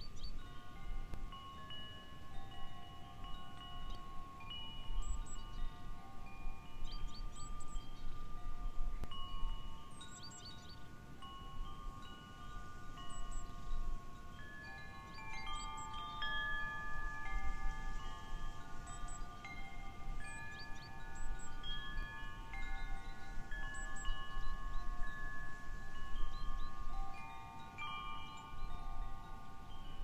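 Wind chimes ringing as the breeze sways them: many clear metal tones struck at irregular moments, overlapping and ringing on.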